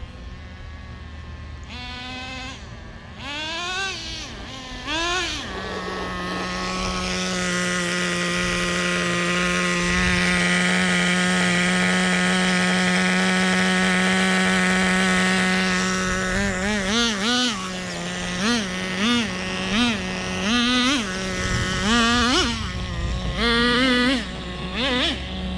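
Small nitro RC car engine revving: a few quick rises in pitch, then held at high revs for about ten seconds, then blipped up and down about once a second. It is being run during carburetor tuning and break-in.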